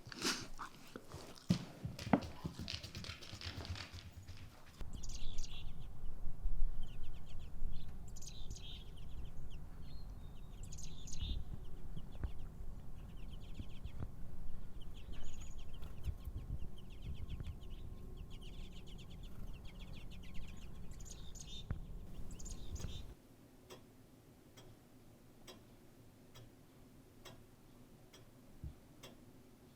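Chickens clucking and calling over a steady low hum. About 23 seconds in this cuts off sharply to quiet room tone with a clock ticking about once a second.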